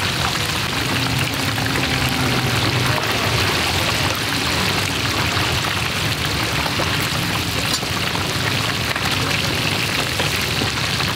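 Fish deep-frying in a large wok of hot oil: a steady, dense sizzle.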